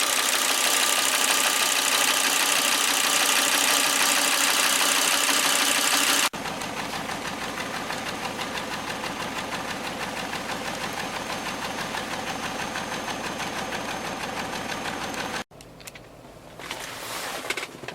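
A 2001 Volvo V70 T5's turbocharged five-cylinder engine running, with a misfire that is put down to failing ignition coils. It drops abruptly to a quieter, evenly pulsing run about six seconds in. Near the end it cuts to a much quieter sound.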